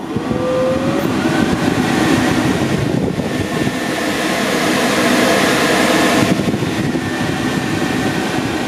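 Vintage Air sure-fit A/C kit's blower fan switched on and blowing air out through the dash louvers, a steady loud rush of air; it grows louder and hissier about three seconds in and eases back about three seconds later. Blower alone, with the compressor left unplugged and no refrigerant in the system.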